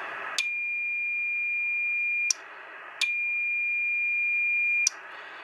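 A steady high-pitched tone, keyed on twice for about two seconds each, with a click at each start and hiss in the short gap between. It is the beat note of a homebrew 3.58 MHz transmitter's carrier, keyed into a dummy load and picked up on a radio receiver.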